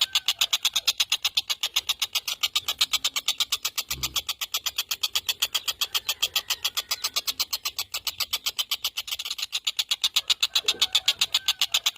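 Tengkek buto kingfisher giving a fast, even rattling call of sharp notes, about seven a second, without a break. A brief low thump about four seconds in.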